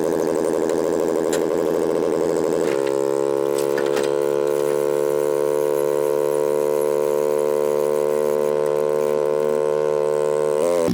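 Mini jet boat's 1053cc Yamaha four-stroke engine running at a steady speed, holding one even pitch, with a brief dip near the end.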